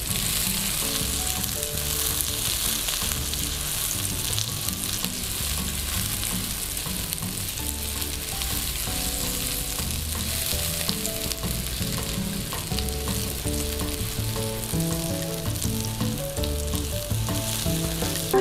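Chopped onion and garlic sizzling steadily in hot oil in a ceramic wok as they are sautéed until lightly browned, stirred and scraped with a spatula. Low held notes of soft background music run underneath.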